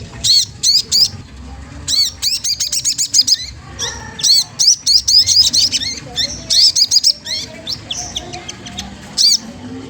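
Sogon trotol, a spiderhunter, calling in sharp, high chirps that come in quick runs, with a fast rattling series of notes about two seconds in and dense chirping through the middle. This is the provoking call used as a lure to stimulate other sogon birds to sing.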